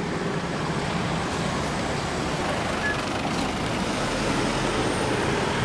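Street traffic noise: motor vehicles going by close on a narrow road, a steady rushing noise that grows a little louder toward the end.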